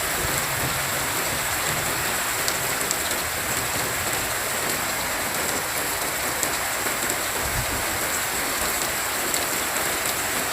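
Heavy downpour pouring steadily, with scattered drops ticking close by and a brief low rumble about seven and a half seconds in.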